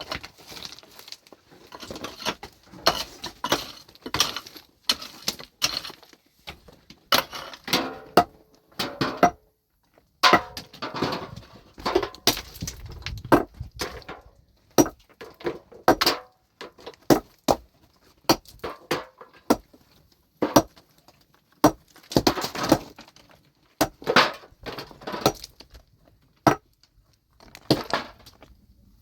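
Loose stones knocking and clinking against one another and against rock, in many quick, irregular sharp hits with the odd short scrape.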